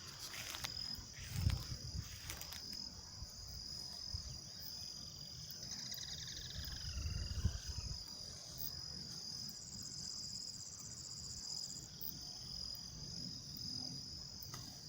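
Dusk chorus of crickets and other insects, a steady high shrill throughout, with a faster pulsing trill joining for a couple of seconds past the middle. A short call gliding down and up in pitch sounds about six seconds in, and a few low thumps come near the start and around seven seconds.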